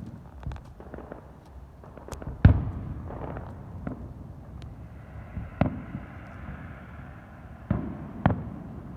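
Fireworks going off: scattered crackles and pops, with a loud bang about two and a half seconds in and three more sharp bangs in the second half.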